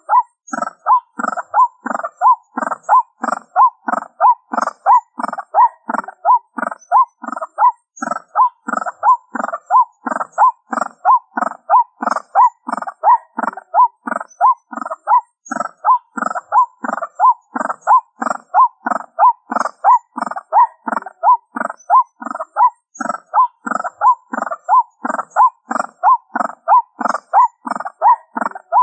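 White-breasted waterhen's 'ruak-ruak' call repeated evenly about twice a second without a break, played as a lure from a small speaker.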